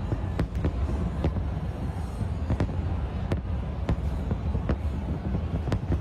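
Fireworks exploding: irregular sharp bangs and cracks, several every second or two, over a continuous low rumble of booms.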